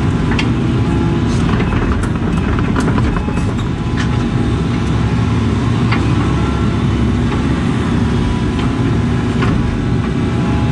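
Case CX80 excavator's diesel engine running steadily under digging load, heard from inside the cab, with a few sharp clanks and knocks scattered through as the bucket works dirt and rocks.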